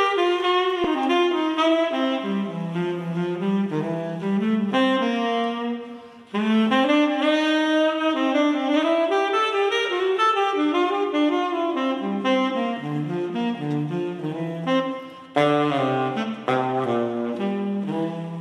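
Unaccompanied tenor saxophone playing a jazz melody, a single line of moving notes in phrases, with short breaks about six seconds in and about fifteen seconds in.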